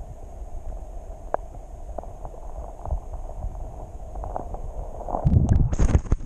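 Muffled underwater sound of a shallow creek picked up by an action camera held below the surface: a steady low rumble with a few faint scattered clicks. About five seconds in, loud sloshing and splashing as the camera breaks out of the water.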